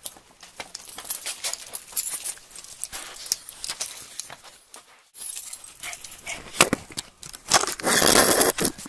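Scattered clicks and rustles of movement and camera handling, then a loud rustle of clothing close to the microphone near the end.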